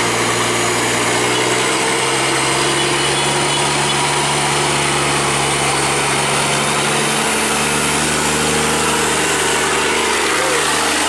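Scania truck's diesel engine pulling an empty lowboy trailer up a steep winding climb, running steadily under load as it comes close. The engine note dips briefly about seven seconds in, then settles again.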